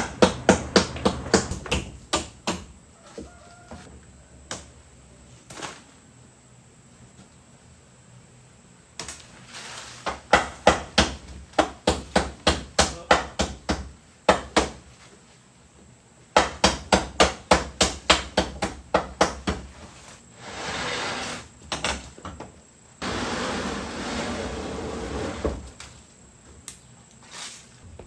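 Hammering: runs of sharp blows at about three strokes a second, stopping and starting several times. Two stretches of steady scraping noise follow near the end.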